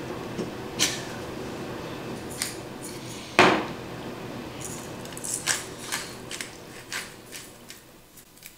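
Kitchen utensils and dishes clinking and knocking on a countertop, with one louder knock about three and a half seconds in and a quick run of small clicks and handling noises after it. A steady hum runs underneath and fades near the end.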